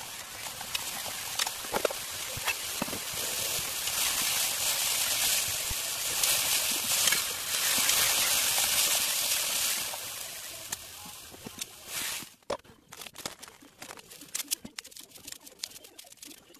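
Sliced nagaimo and maitake mushrooms sizzling in garlic butter in a frying pan while being stir-fried with chopsticks. The sizzle swells around the middle as soy sauce goes in. About twelve seconds in it stops suddenly and gives way to a run of small snips and clicks as nori is cut with kitchen scissors.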